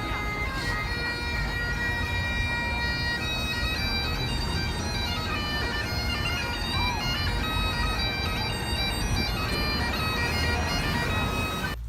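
Bagpipes playing a tune over steady drones, cutting off abruptly near the end.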